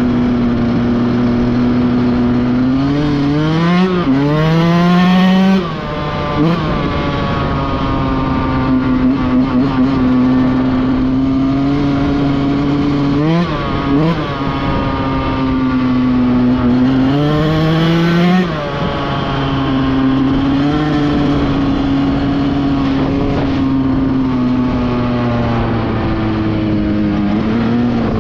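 Dirt bike engine running under the rider at speed, heard close-up. The revs climb and then drop back sharply about three times, around four, thirteen and eighteen seconds in, with wind rush over the microphone underneath.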